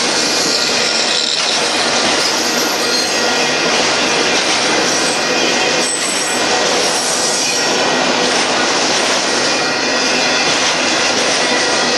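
Freight train's autorack cars rolling past at close range: a loud, steady rush of steel wheels on rail.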